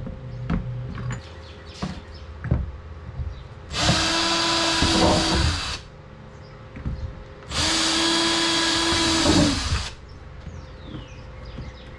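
Power drill with a 1/4-inch bit drilling all the way through a hole, in two runs of about two seconds each. The pitch drops as each run winds down. Light handling knocks come between the runs.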